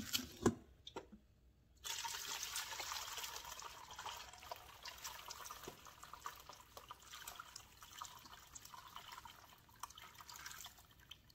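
Chicken broth poured in a steady stream from the stainless-steel inner pot of an Instant Pot through a mesh strainer into a large pot. The stream starts about two seconds in and dies away near the end. A couple of sharp knocks come at the start as the metal pot is handled.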